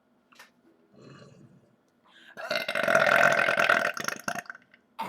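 A person burping: one long, loud burp lasting about two seconds, starting about two and a half seconds in.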